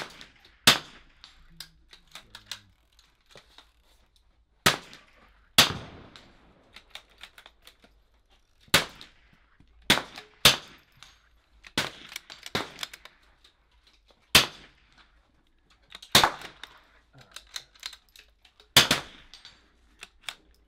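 Several .22 LR rimfire bolt-action rifles firing single shots at irregular intervals, about a dozen sharp cracks with short echoing tails, and fainter clicks between shots.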